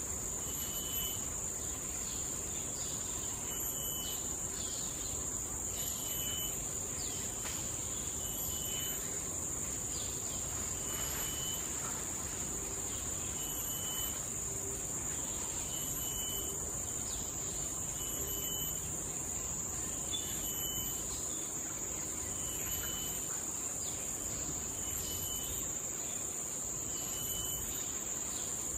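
Forest insects droning steadily at a high pitch, with a short high chirp repeating at even intervals about every two and a half seconds.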